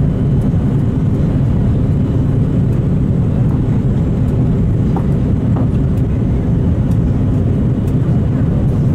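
Steady low rumble of cabin noise inside an Airbus A330-200 jet airliner, heard from an economy seat.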